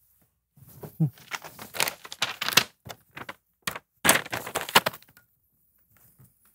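Stiff paper rustling and crinkling in irregular bursts as a large yellow paper envelope is handled, with a short break about three seconds in; it stops a second or so before the end.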